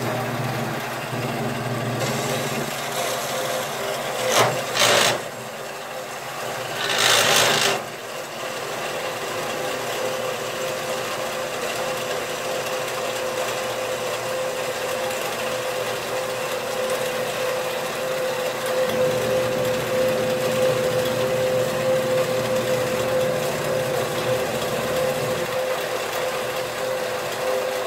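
Small vertical bandsaw running and slowly ripping a brass bar lengthwise, the blade cutting steadily through the metal. Two brief louder noisy bursts come about four and seven seconds in, after which a steady whine holds under the cutting noise.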